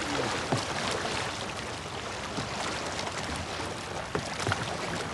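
Kayak paddle blades dipping, splashing and dripping as several kayakers paddle, heard as a steady wash of water with many small splashes.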